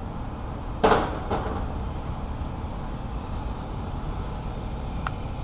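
A sharp knock about a second in and a lighter one just after, from the starter or tools being handled under the vehicle during starter removal, over a steady low hum.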